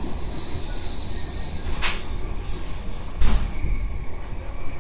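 Passenger train running on rails, heard from inside the carriage: a steady low rumble with a high, steady wheel squeal that fades about two seconds in, and two sharp knocks from the wheels on the track, the second louder with a low thud.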